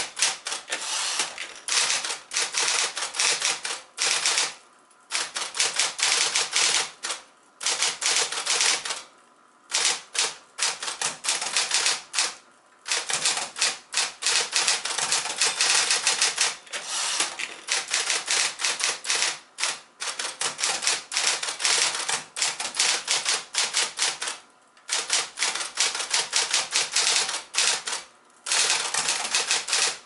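A 1964 Sears Electric 12, a variant of Smith-Corona's 5TE electric portable typewriter, being typed on: fast runs of powered key strikes, each run lasting a few seconds, with brief pauses between them.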